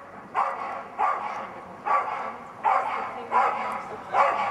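A dog barking repeatedly: six loud barks, a little under a second apart, each trailing off over about half a second.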